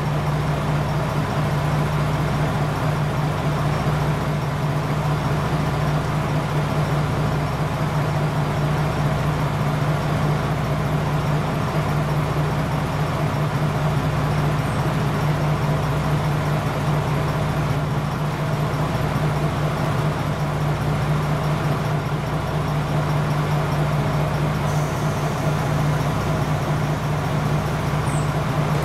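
KiHa 47 diesel railcar's engine idling at a standstill, a loud, steady hum that does not change.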